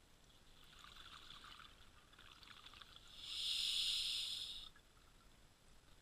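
A scuba diver breathing through a regulator, heard underwater: a stretch of bubbling and crackle, then about three seconds in a louder hiss of a breath lasting about a second and a half, which cuts off suddenly.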